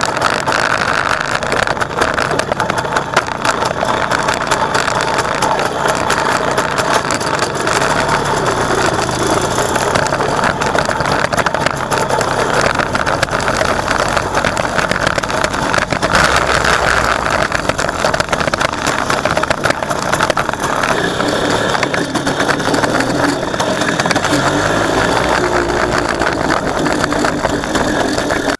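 WSK 125 Lelek motorcycle's single-cylinder two-stroke engine running steadily at idle, its pitch rising and falling somewhat after about twenty seconds.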